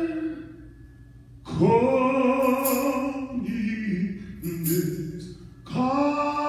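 Voices singing a slow gospel song into microphones. A held note ends, there is a pause of about a second, then the voices come in with a slide up into long held notes, and a new phrase starts near the end.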